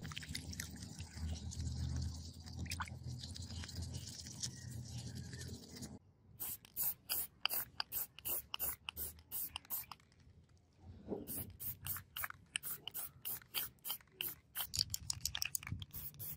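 Wet sanding: sandpaper scrubbing a sword guard under water. About six seconds in, this gives way to a spray can of clear coat being worked in a quick run of short, sharp strokes, about three a second, with a brief pause partway through.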